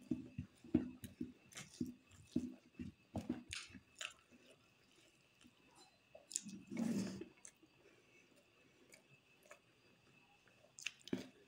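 Close-miked chewing of a mouthful of rice and pork curry, with a quick run of wet smacking clicks over the first few seconds. One longer, louder sound comes about seven seconds in, and a few more smacks come near the end.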